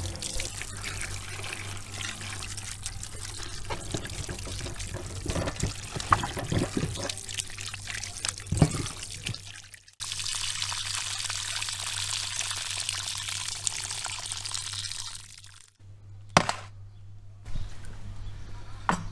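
Water pouring and trickling, with splashing as peeled onions and carrots are moved by hand in a bowl of water. A few sharp knocks stand out over it.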